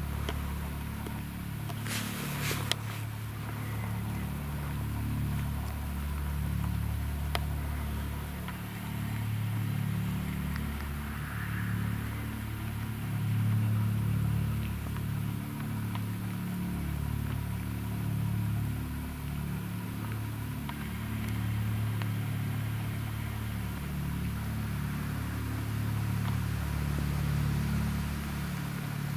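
A distant Eurocopter EC155 rescue helicopter on its approach: a steady low rotor and engine rumble that wavers in level. A couple of sharp clicks come about two seconds in.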